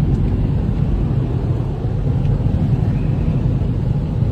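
A car wading through deep floodwater, heard from inside the cabin: a loud, steady, low wash of water surging against the body. Near the end, water sprays up over the car and the side window.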